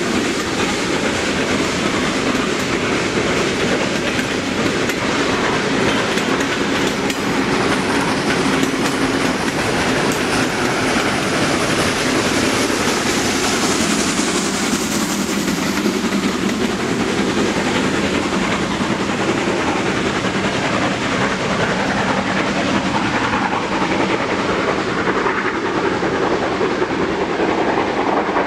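Steam-hauled passenger train rolling past, its carriage wheels clacking steadily over the rail joints. Around the middle a louder hiss comes as a second steam locomotive, coupled at the rear of the train, goes by.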